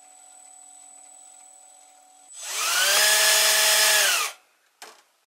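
Brushed electric motor of a scale model excavator, with a finned radiator and cooling fan, idling with a faint whine, then spinning up about two seconds in to a loud, steady whine that winds down after about two seconds. A short knock follows near the end.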